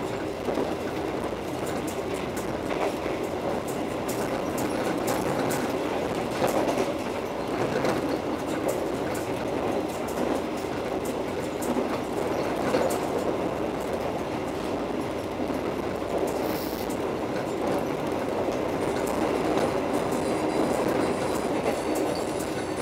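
Argo Parahyangan passenger train running at speed, heard from inside the coach: a steady rumble of wheels on the rails, with scattered faint clicks.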